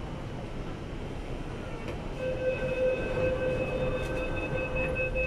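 MTR Tuen Ma line train's door-closing warning, heard from inside the carriage over a steady hum of train and station ambience: a rapid beeping tone starts about two seconds in and keeps going, signalling that the doors are about to shut.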